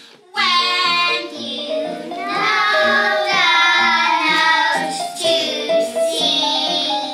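Young girls singing a song together with instrumental accompaniment. There is a brief drop just after the start, then the singing carries on with held, changing notes.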